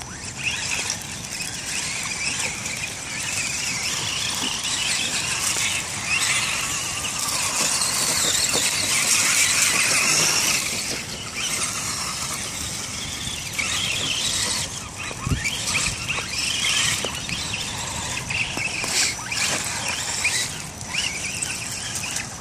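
Electric motors and gears of two radio-controlled rock crawlers, an Axial Wraith and an Axial SCX10, whining as they drive through mud, the high pitch wavering up and down; loudest about 8 to 10 seconds in.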